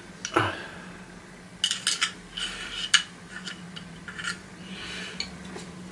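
Metal tools clinking and tapping against the vacuum motor's metal core and pins as it is worked on. There is a short scrape near the start, then a quick run of sharp clinks with a bright ring, and a few lighter taps after.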